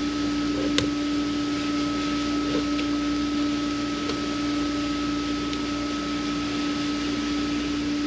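Steady mechanical hum with two constant tones over an even hiss, and a single faint click under a second in.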